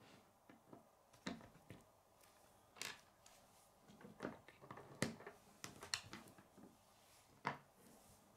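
Faint, irregular clicks and taps of chunky K'nex Kid plastic pieces being handled, pressed together and set down on a wooden tabletop.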